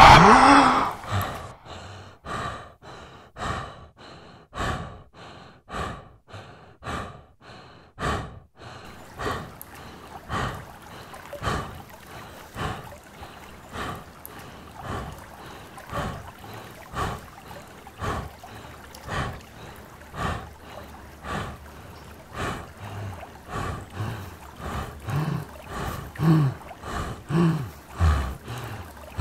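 Rapid, rhythmic panting breaths, about two a second, with a few low, voiced grunting sounds near the end.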